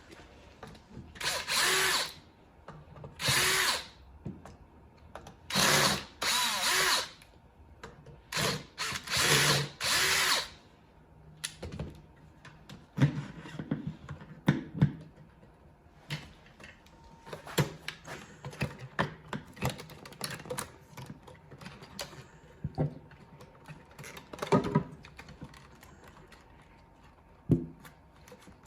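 A cordless power drill-driver runs in about five short bursts of one to two seconds each over the first ten seconds, driving out the screws that hold a drive motor in a robot mower's chassis. After that come scattered sharp clicks and knocks.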